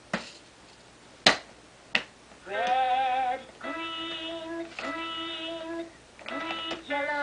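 Three sharp knocks on a plastic baby activity table as it is grabbed, then, about two and a half seconds in, the table's electronic toy music starts: a short sung tune in held notes, in phrases with brief gaps.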